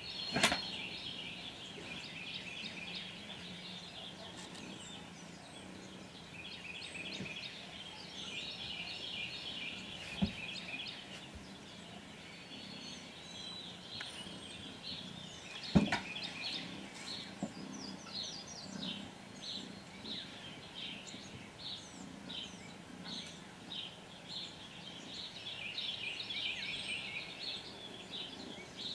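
House cat purring as it rough-plays with a large dog, a faint static-like rumble. Repeated short, high-pitched calls sound throughout, and there are three sharp knocks, the loudest about half a second in and another about sixteen seconds in.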